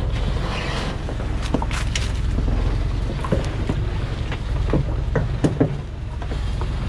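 Diesel engine of a Thaco Forland logging truck, laden with acacia logs, running in a steady low rumble as it creeps along a rough forest track. Scattered short cracks and knocks sound over it.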